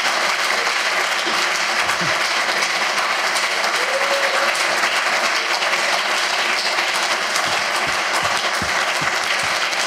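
Audience applauding: the steady, even clapping of many hands, holding at the same level throughout.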